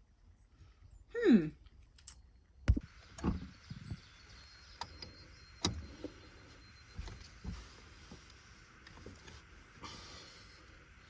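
A short squeak that falls steeply in pitch, then a series of scattered knocks and clunks.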